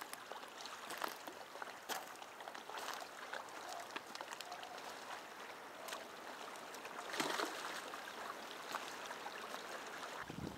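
Lake water lapping against a rocky shoreline, with footsteps crunching over gravel and stones. About seven seconds in, a louder splash as a catfish is released back into the water.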